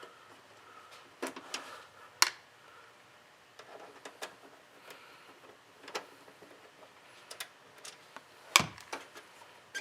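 Phillips screwdriver working small screws out of a steel computer case: scattered light clicks and metallic taps, the sharpest about two seconds in and another, heavier one near the end.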